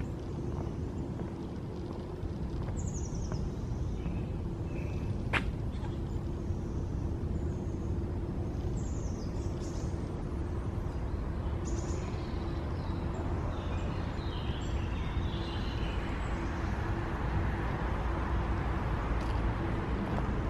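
Woodland ambience: birds chirping now and then with short falling calls over a steady low rumble, with a single sharp click about five seconds in.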